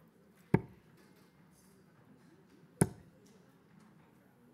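Two steel-tip darts striking a Winmau bristle dartboard, one about half a second in and the next a little over two seconds later, each a short, sharp thud.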